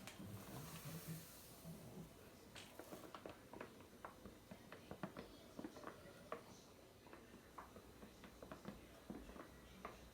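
Near silence, with faint, irregular small clicks and ticks.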